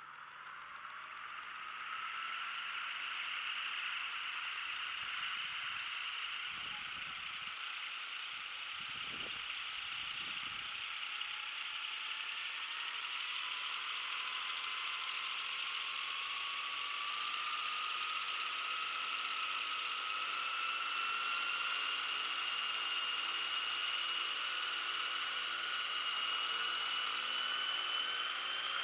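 Aveox brushless electric motor and rotor drive of a radio-control tandem-rotor Vertol KV-107 model helicopter spinning up its rotors: a whine that grows from quiet over the first couple of seconds, dips slightly in pitch, then climbs slowly and steadily as the rotors gain speed.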